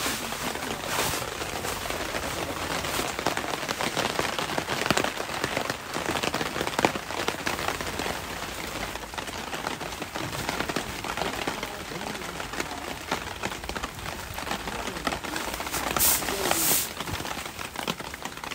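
Steady rain falling on a tent, a dense patter of drops, with rustling fabric as ground sheets and bedding are spread out inside; two short, louder rustles near the end.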